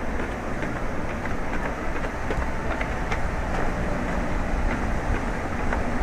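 Steady low rumble of vehicles, with faint scattered ticks.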